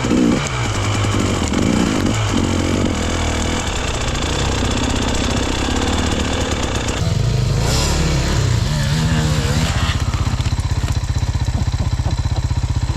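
Enduro motorcycle engine running with uneven, rising and falling revs, then settling into a steady idle for the last few seconds.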